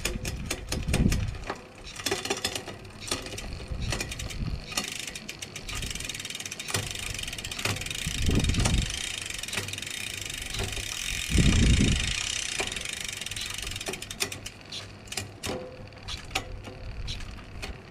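Bicycle drivetrain with a new SRAM X01 Eagle AXS electronic rear derailleur being worked on by hand. The freehub pawls tick and the chain runs over the cassette through the middle, with a few knocks from handling.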